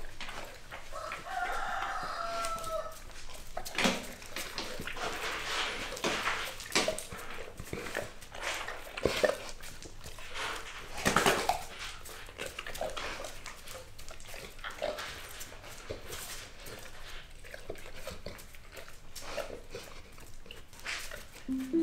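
A dog whining, a high cry that falls slightly about one to three seconds in, then scuffling and many sharp clicks and knocks as two large dogs move about on a concrete floor: a Cane Corso male worked up by a Doberman female in heat.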